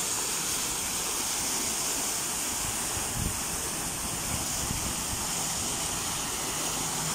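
Pond fountain: a vertical water jet splashing back into the pool, with water spilling over rock cascades, a steady hiss of falling water.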